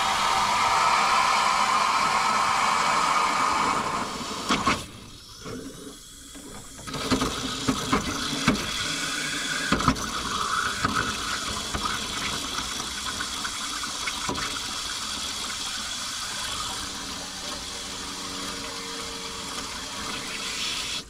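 Water rushing from a garden hose into the radiator, filling the cooling system to flush the L134 flathead's block. The flow drops off for about two seconds, with a few knocks, then runs steadily again.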